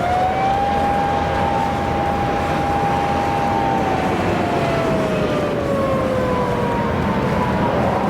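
Japanese unmarked police car's siren giving one slow wail: it rises, holds a steady pitch for about three and a half seconds, then slowly falls away. Steady traffic noise runs underneath.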